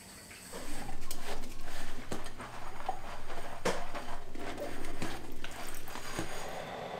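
Dishes being washed by hand in a stainless-steel sink: water splashing as a ceramic bowl is rinsed and rubbed, with a few sharp clinks of crockery.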